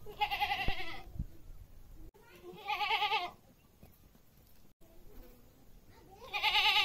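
Goats bleating: three separate bleats, each under a second, with a wavering, quavering pitch, the last one starting near the end.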